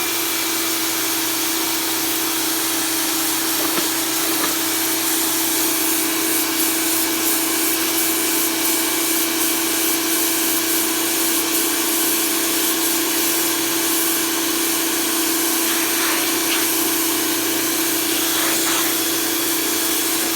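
Small electric pressure washer running steadily, its motor and pump giving a constant whine under the hiss of the water jet.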